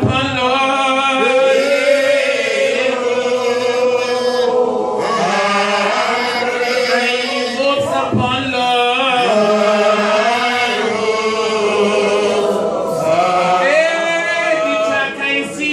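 A man singing a chant-like song into a handheld microphone, holding long notes and gliding between pitches without pause.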